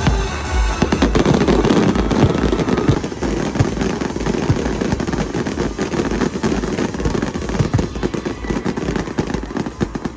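Fireworks going off in dense, rapid succession, a continuous barrage of bangs and crackles, with music and its pulsing beat underneath that fade away near the end.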